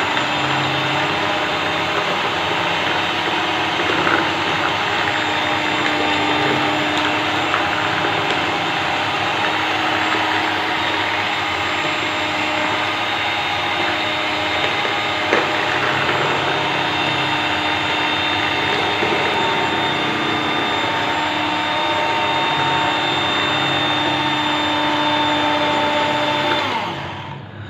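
Electric hand mixer running steadily at constant speed, its beaters whipping cream for ice cream, then switched off just before the end.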